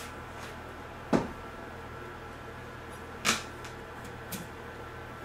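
A kitchen knife and a sweet potato knock sharply on a cutting board twice, about a second in and about three seconds in, as the potato is cut in half.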